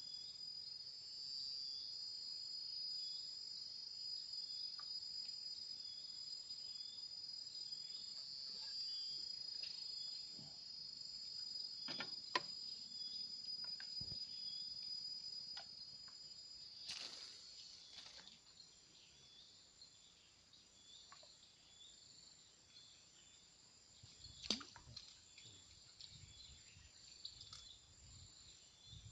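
A steady, high-pitched chorus of insects by the river, a little weaker in the second half, with a few faint clicks and knocks from the anglers' handling.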